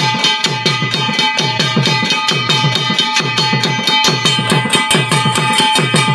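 Garhwali jagar drumming: a fast, even drum rhythm in which each stroke dips in pitch, over the steady ring of a struck brass plate (thali).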